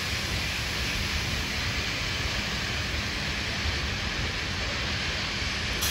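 Steady, loud rushing hiss from the dam intake's automated trash-rake machine as it travels along its track with its conveyor belt running. The noise is freakishly loud, and the belt is suspected of having brushes scraping it where it unloads.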